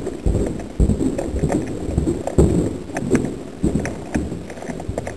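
Handling noise on the camera's microphone: irregular rubbing and scraping with dull thumps and a few sharp clicks, as the camera moves against nearby surfaces.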